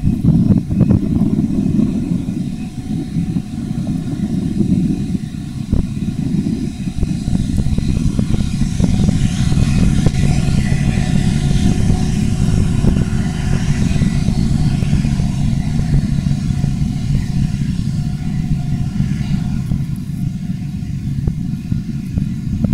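Il-76TD-90VD freighter's four PS-90A-76 turbofans running as the aircraft rolls past on the ground: a loud low rumble, with a jet hiss that builds toward the middle as it passes closest and then eases off.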